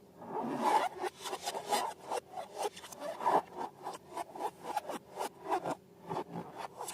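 Hands working slime and balloons: an irregular run of short rubbing and scraping strokes, several a second.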